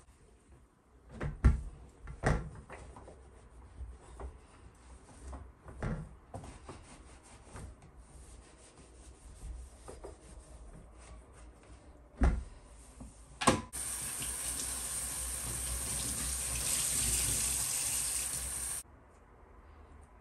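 Several sharp knocks and clatters, then a kitchen tap running in a steady rush for about five seconds before it is shut off suddenly.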